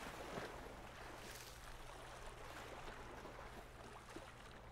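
Faint, steady background of small lake waves lapping on a rocky shore, over a low steady hum.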